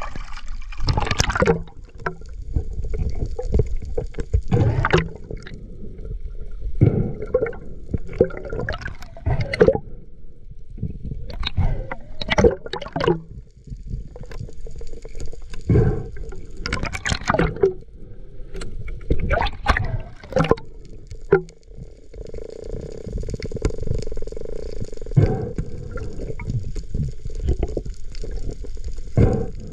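Water gurgling and splashing around a camera at and just below the sea surface, in many irregular bursts over a constant low rumble.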